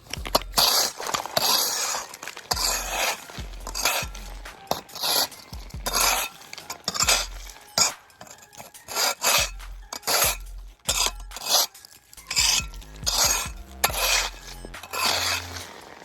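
Temper forged ice scraper blade striking and scraping compacted ice and snow in repeated strokes, about one a second, each a harsh scrape with clinks.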